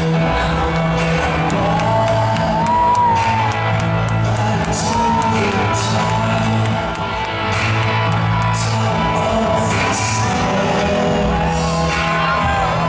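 Wrestler's entrance theme song with singing over an arena PA, heard from within the crowd with the hall's echo, fans shouting and whooping along.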